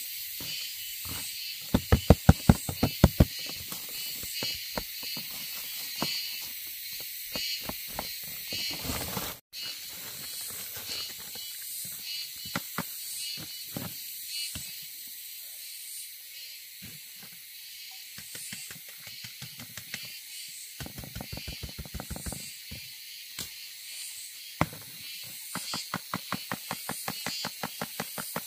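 Runs of rapid light taps or knocks, several a second, loudest about two seconds in and coming again in quicker runs near the end. Under them is a steady high-pitched insect drone that swells and fades in a slow pulse.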